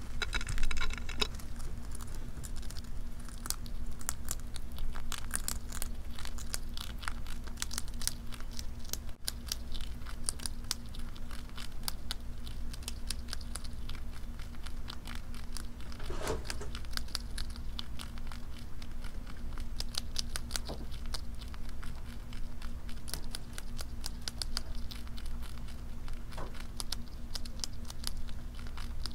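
Pet rat chewing crunchy food close to a microphone: rapid, continuous crunching and nibbling clicks.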